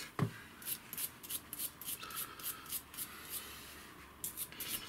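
Hand scrubbing of a scooter's electrical contacts and frame earth points, in short scratchy strokes about two or three a second. The strokes pause a little after three seconds in and come quicker near the end, after a soft knock at the very start.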